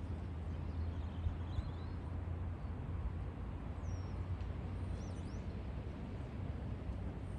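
A steady low rumble with a few faint, high bird chirps scattered over it.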